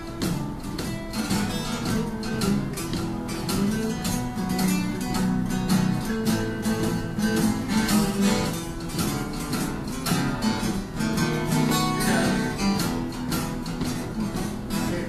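Acoustic guitar music, strummed and picked at a steady, lively pace with no singing.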